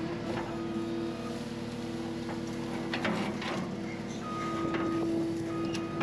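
Skid steer engine running steadily while the grapple is worked, its pitch shifting slightly with load, with a brief higher whine about four seconds in and a few knocks of metal around the middle.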